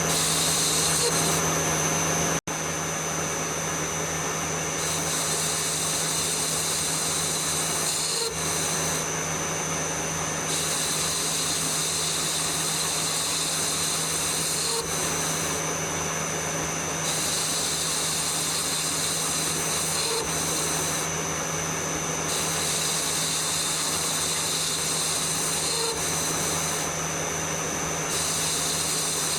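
Metal lathe running steadily, turning down a wood-lathe spindle: a constant motor hum and high whine, with a cutting hiss that comes and goes every few seconds. There is a brief break about two seconds in.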